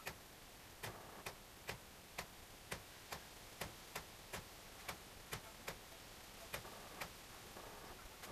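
Faint, steady ticking, evenly spaced at a little over two ticks a second, like a clock, with a little faint handling noise of small metal parts near the end.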